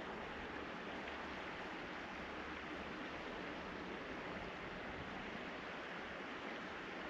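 Steady, even rushing of flowing stream water, with no distinct calls or knocks.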